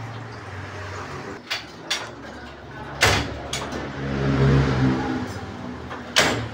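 Workshop noise: a steady low hum with five sharp knocks, and a vehicle engine swelling up and fading away in the middle.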